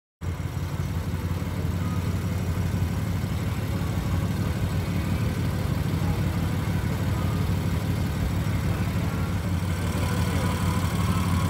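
BMW F80 M3's twin-turbo inline-six idling steadily with the hood open. It runs through an M Performance exhaust, with the stock catalytic converters refitted.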